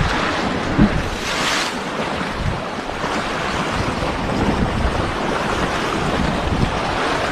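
Sea waves washing and breaking against rocks, with wind buffeting the microphone in gusts. A brief louder hiss comes about a second and a half in.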